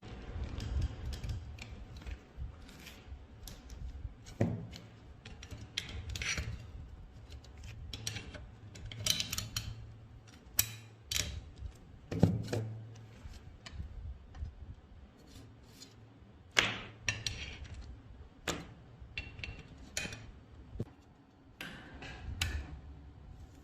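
Hand work on metal gun parts: irregular clicks, scrapes and knocks of tools and parts being handled, with a few sharper knocks along the way.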